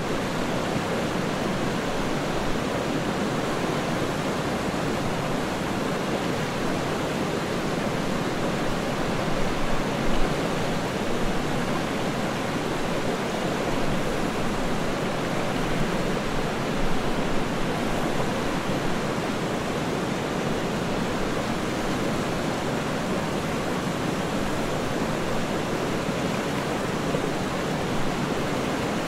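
A river rushing steadily: an even wash of flowing water with no change.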